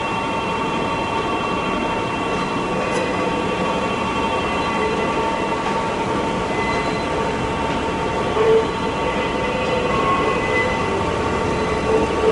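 DE10 diesel-hydraulic locomotive's V12 engine running as it slowly hauls a train of rail cars, with steady whining tones over the engine noise and a brief louder tone about eight and a half seconds in.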